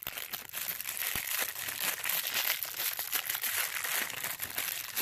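A small plastic toy wrapper crinkling steadily as it is handled and opened by hand, with many small crackles.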